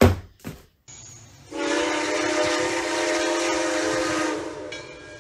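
Train air horn sounding one long blast, a chord of several steady notes held for about three seconds, starting about a second and a half in. It is preceded by a short sudden noise at the very start.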